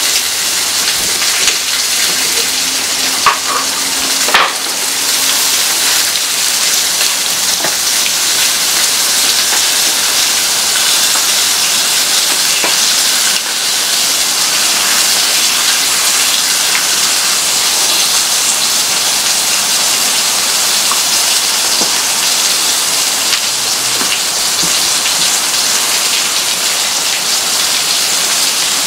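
Steady sizzling hiss of bacon frying on a Blackstone flat-top griddle, mixed with rain falling. A couple of light knocks come a few seconds in.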